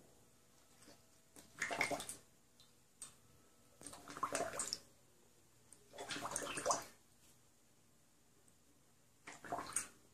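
Dog lapping water from a stainless steel bowl, in four short bouts of splashy laps.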